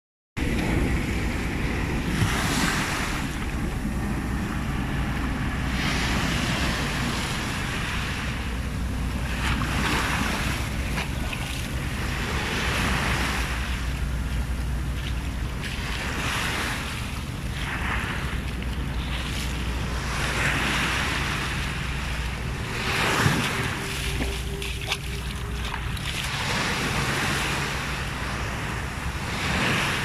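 Small waves breaking and washing up a sandy beach, the foamy hiss swelling and fading every three to four seconds.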